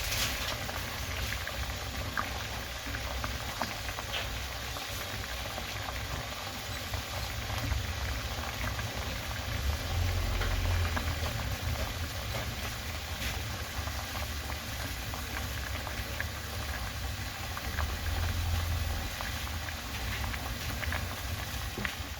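Vegetables boiling in a pot of water: a steady bubbling with many small pops and a low rumble underneath.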